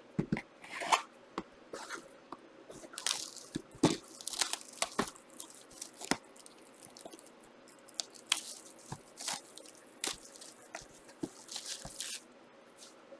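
Trading cards and their plastic wrappers and sleeves being handled: irregular crinkling with sharp clicks and taps, busiest about three to five seconds in and again towards the end.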